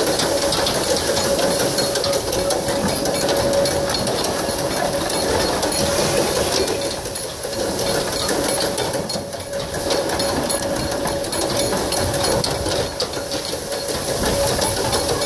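Continuous fast rattling and clattering of a wooden bull-drawn rig as a pair of bulls runs it round a circular track, with a steady ringing tone underneath.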